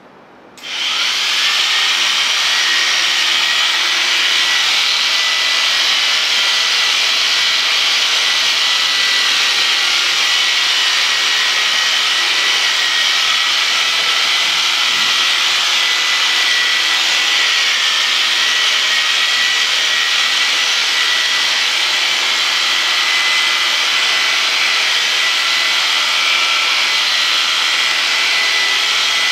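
Electric sheep shears switched on about half a second in, then running steadily with a high whine while shearing a ram's wool.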